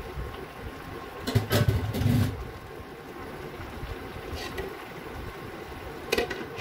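Saucy stew simmering in a frying pan while a spatula stirs and scrapes through it, loudest about a second and a half in. Near the end a glass pan lid clicks down onto the pan.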